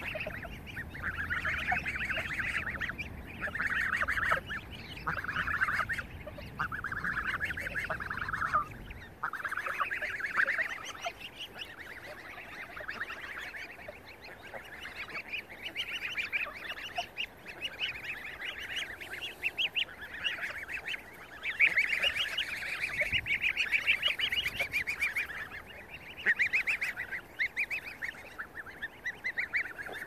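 A flock of geese honking and calling over one another in a dense, continuous chorus that swells and dips, loudest a little past the middle. A low rumble underlies the calls until about nine seconds in, then stops.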